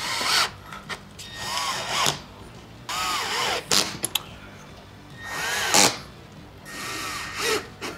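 Cordless drill/driver running in about five short bursts, driving screws through a roof vent's mounting flange into the camper roof; on each burst the motor's pitch climbs and then falls away.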